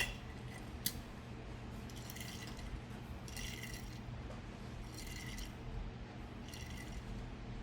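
Faint handling of a diecast toy car and its plastic blister packaging. A sharp click comes right at the start and another about a second in, then a few soft plastic rustles, over a steady low hum.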